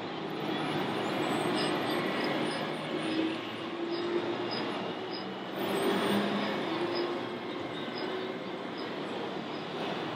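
Radio-controlled timber truck's loader crane at work: a steady whine comes in short spells of about a second as the crane moves. Behind it is a constant hall din.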